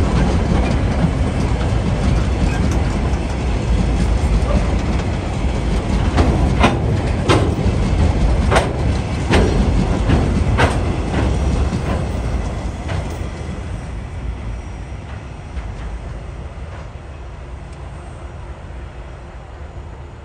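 Freight train wagons rolling past: a steady rumble of steel wheels on rail, with a run of sharp wheel clacks in the middle. The sound then fades away as the last wagon passes and the train moves off.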